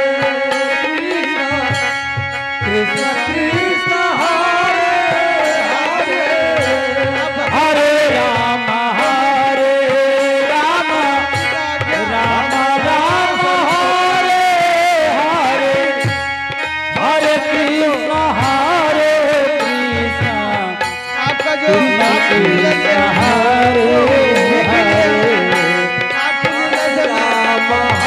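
Indian folk stage music: a drum beat under a melody that bends and glides in pitch, with brief breaks twice in the second half.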